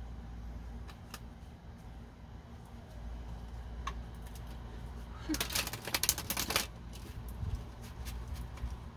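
Tarot cards being shuffled by hand: a dense run of rapid card flicks lasting about a second and a half just past the middle, with a few single card snaps before and after, over a low steady hum.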